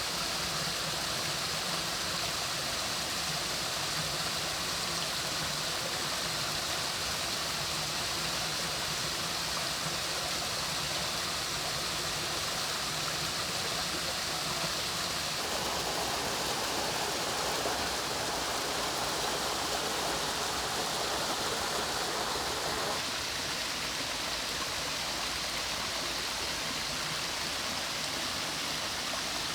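Mountain stream water flowing and splashing over rocks, a steady rush. For several seconds in the middle it grows fuller and lower.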